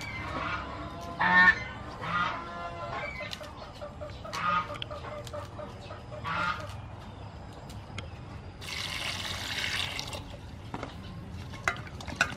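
Poultry calling: a few short honking, clucking calls, the loudest about one and a half seconds in. Around nine seconds in comes a rustling hiss lasting about a second, and near the end a few light clicks.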